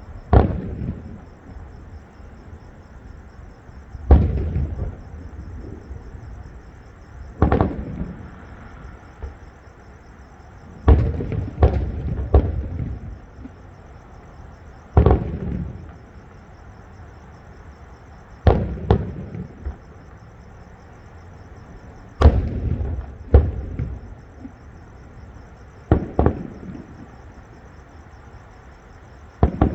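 Fireworks display: shells bursting with a sharp bang every three to four seconds, some in quick pairs, each bang trailing off in a low rumbling echo.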